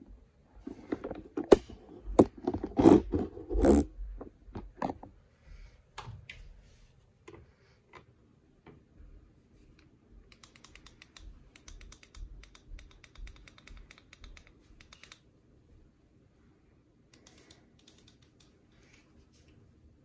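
Handling noises at the washing machine's door: several sharp knocks and clicks in the first few seconds, then a rapid run of fine clicking lasting a few seconds, with a shorter run near the end, over a faint steady hum.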